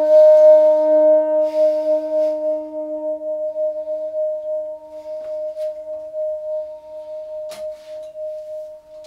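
A held, electronically sustained saxophone note from the electric sax effects rig ringing on after the playing has stopped: one steady, slightly pulsing tone with a lower octave beneath it that fades out after about three seconds, the whole slowly dying away. A few sharp clicks come in the second half.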